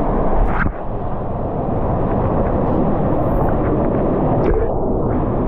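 Waterfall pouring inside a cave: a loud, steady rush of water, dipping briefly just under a second in.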